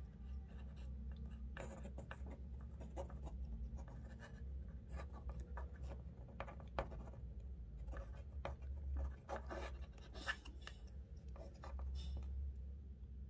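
Small scratching, rubbing and clicking handling noises as fingers tug a looped twine and push a rubber damper ball to squeeze it through a hole in a damping plate, over a steady low hum.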